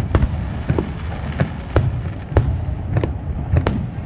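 Aerial firework shells bursting: a run of sharp bangs, about seven in four seconds and unevenly spaced, over a low rumble.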